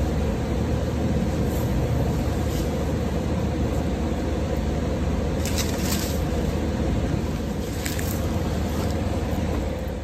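A steady mechanical hum with a constant noise over it, like a machine running close by, with brief crisp rustles of corn stalks being pulled up about five and a half and eight seconds in.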